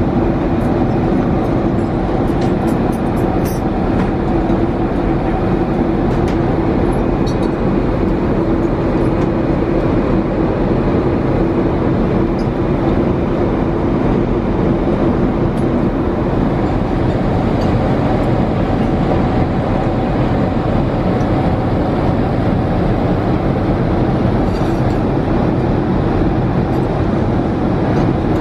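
Steady cabin noise of a Boeing 787-8 airliner in cruise: an even rushing noise with a low steady hum through it, and a few faint clicks about three seconds in.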